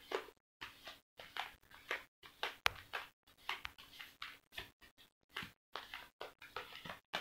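A deck of tarot cards being shuffled by hand: a run of soft rustling card flicks, two or three a second, with one sharper snap about two and a half seconds in.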